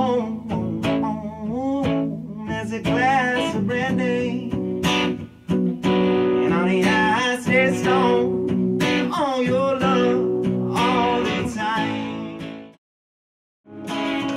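A man singing a slow song with wavering held notes over his own strummed acoustic guitar. About thirteen seconds in, the sound cuts off to silence for about a second, then guitar and voice start again.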